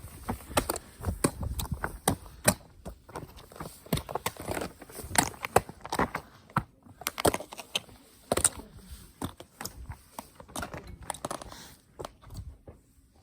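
Footsteps crunching through deep snow, an uneven run of crisp crunches and scrapes that thins out and grows fainter near the end.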